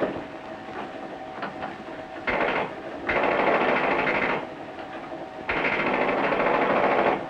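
Penny-arcade machine-gun game firing a rapid mechanical rattle in bursts. The first burst starts about two seconds in and the longest runs for over a second, over a fainter background clatter.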